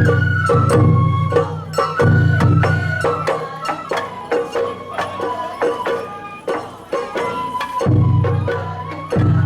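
Sawara-bayashi festival music: a high bamboo-flute melody over dense drum and percussion strikes, the low drumming dropping out for a few seconds in the middle and returning near the end.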